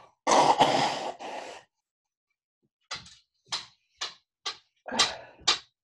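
A person blowing a runny, allergy-stuffed nose into a tissue: one long, loud blow, then after a pause a run of short, sharp bursts through the nose.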